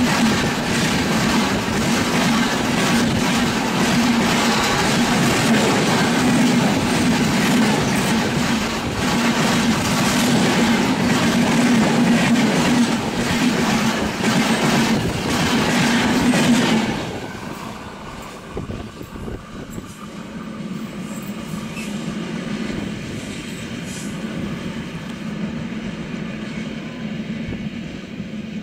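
Passenger coaches of an express train rushing past at close range over a river bridge, wheels clattering rapidly over the rail joints above a steady low hum. A little past halfway the sound drops suddenly to a quieter rumble as the train goes away.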